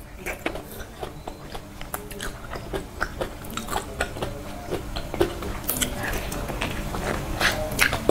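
Close-miked chewing of durian flesh, with many short, irregular mouth clicks.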